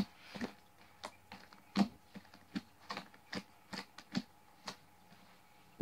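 A hand poking and squeezing a large batch of fluffy shaving-cream slime in a plastic tub, giving a string of short, irregular clicks and pops about two a second.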